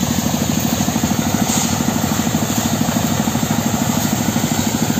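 An engine running steadily at idle with an even, rapid chugging beat.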